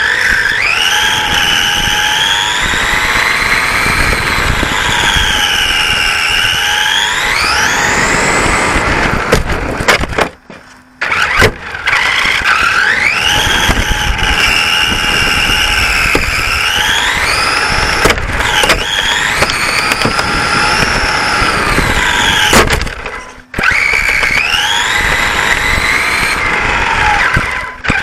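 Radio-controlled racing saloon car's motor whining, heard from a camera on the car, its pitch rising and falling as the car speeds up and slows, over rough tyre and road noise. Twice the sound drops out briefly, about ten seconds in and again about twenty-three seconds in.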